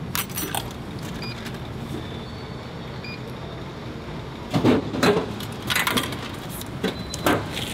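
Nissin cup noodle vending machine working after a selection: a few clicks and short beeps, then several loud clunks from about halfway through as it dispenses the cup, over a steady low hum.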